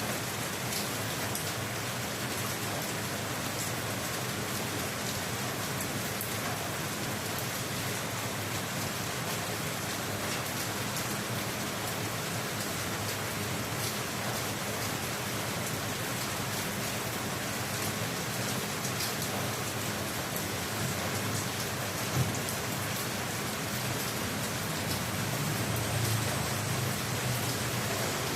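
Steady rain falling, an even hiss with scattered drop ticks. There is one sharp knock partway through, and a low rumble swells near the end.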